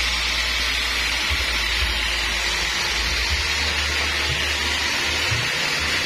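Homemade band sawmill running with a steady, high hiss and a low hum underneath.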